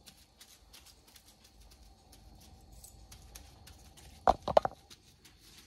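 Gloved hands working seasoning into raw chicken thighs on a wooden cutting board, faint wet squishing with many small ticks. About four seconds in, a quick cluster of three or four loud knocks.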